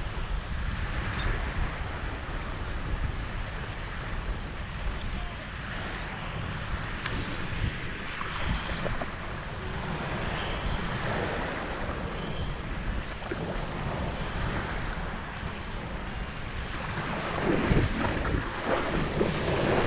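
Waves washing on the shore with wind buffeting the microphone, a steady rush that grows louder and choppier near the end.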